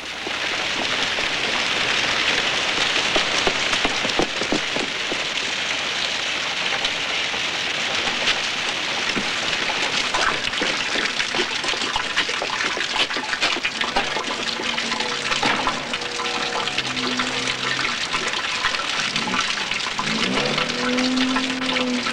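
Steady rushing, crackling water noise, with a few low held tones coming in during the second half.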